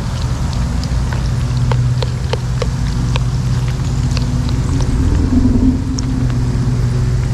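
Pork frying in hot oil in a pan, sizzling with scattered crackling pops as it browns, over a steady low hum.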